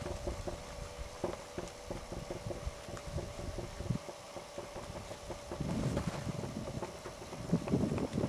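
Pony's hooves striking the dirt arena footing in a steady rhythm of about three beats a second as it trots. Wind buffets the microphone in gusts from about five and a half seconds in and again near the end.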